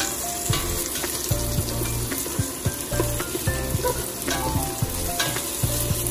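Onion, garlic and ginger sizzling in hot vegetable oil in a stainless steel pot, with a spatula stirring and clicking against the pot. Background music plays underneath.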